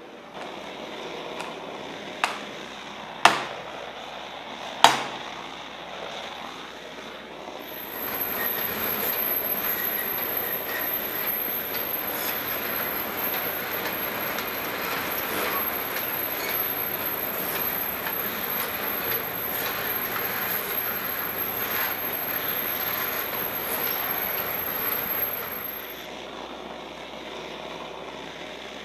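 Three sharp clicks, then a propane gas torch burning with a steady rushing hiss and a thin high whine that come on abruptly about eight seconds in and cut off near the end.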